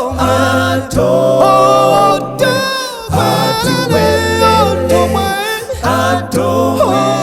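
A cappella gospel vocal group singing in close harmony without instruments, a low bass voice holding long notes under the upper parts, the chord shifting about every second.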